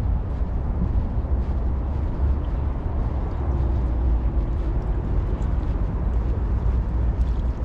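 Wind buffeting the microphone outdoors, a steady low rumble with an uneven, fluttering level.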